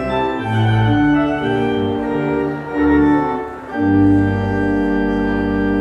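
Church organ played from a multi-manual console: held chords with notes changing about once a second, then about four seconds in a fuller chord with deep bass sets in and is held.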